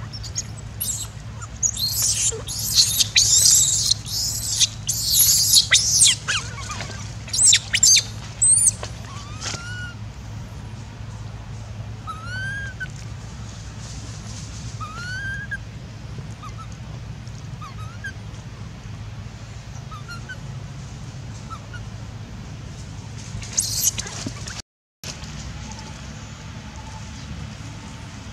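Baby long-tailed macaque crying loudly in a run of high-pitched screams, then short thin rising chirps, with one more brief scream near the end.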